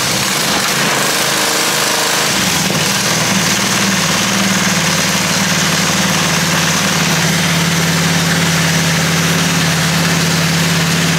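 Gas pressure washer's Honda single-cylinder four-stroke engine running steadily just after starting. Its pitch wavers briefly about two seconds in, then holds level.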